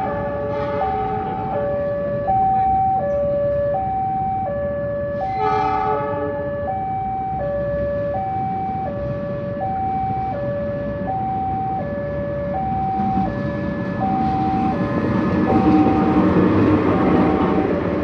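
Railway level-crossing warning alarm sounding a steady two-tone high-low signal, about one high-low cycle a second, as a train approaches. A diesel locomotive horn gives a short blast about five seconds in, and the train's rumble grows louder near the end.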